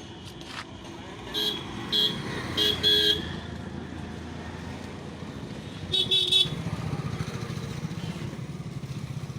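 Vehicle horns tooting: four short beeps in the first three seconds, then a quick run of beeps about six seconds in. After that a small engine keeps running steadily.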